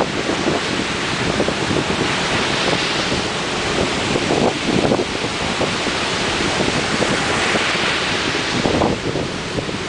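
Ocean surf: waves breaking and washing ashore in a steady roar of noise that swells every few seconds, with wind buffeting the microphone.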